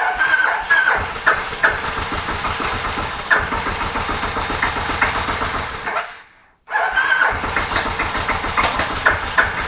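Electric starter cranking the Kawasaki VN1500 Vulcan's V-twin with the choke on, the engine turning over with rapid pulsing but not catching; the cranking stops about six seconds in, then starts again under a second later. The mechanic suspects it is firing on only one cylinder or that the spark plugs are flooded.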